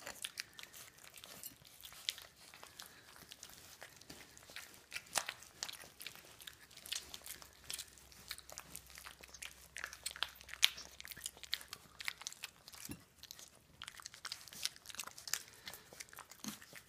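A litter of four-week-old puppies eating wet puppy food from plates: irregular wet smacking and chewing with many small clicks.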